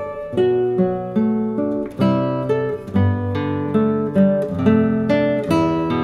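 Background music: acoustic guitar playing plucked, ringing notes in a steady rhythm, a new note or chord about every half second.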